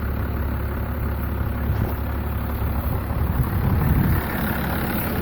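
First-generation Dodge Cummins truck's diesel engine idling with a steady low rumble.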